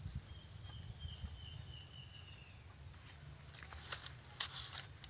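Quiet outdoor background with a faint, thin high whistle lasting about two seconds, then a couple of sharp clicks near the end as dry nipa fronds and fruit are handled.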